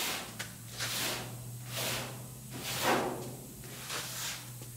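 Scotch-Brite abrasive pad rubbed over a satin-painted sheet-metal truck cab roof in scrubbing strokes about a second apart, about five in all, scuffing the paint down to a duller sheen.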